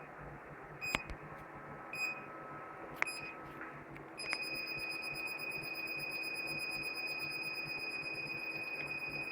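Security and fire alarm panel buzzer giving short high beeps about once a second, then at about four seconds switching to one steady unbroken tone.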